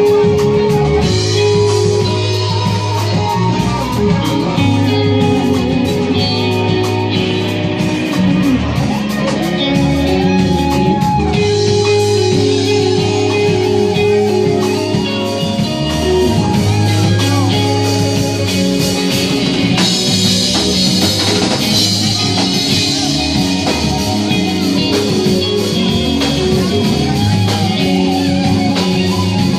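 Live rock band playing: electric guitars over an electric bass line and a drum kit.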